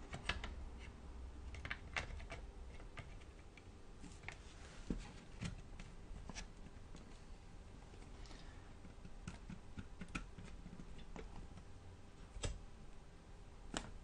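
Light, irregular clicks and taps of a 2.5-inch laptop hard drive knocking against the netbook's plastic and metal drive bay as it is pushed into its slot by hand.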